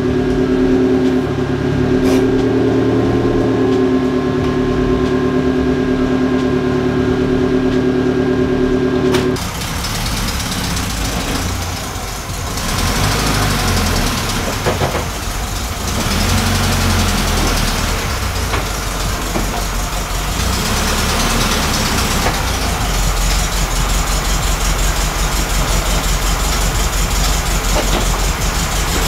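A car engine running steadily, cut off abruptly about nine seconds in. Then a Volkswagen Type 2 bus's air-cooled flat-four engine running at low speed as the bus is driven into the garage and parked.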